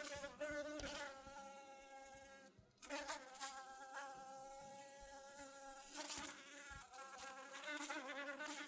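Wings of a flying insect buzzing, a wavering drone that swells and fades, with a brief dip about two and a half seconds in.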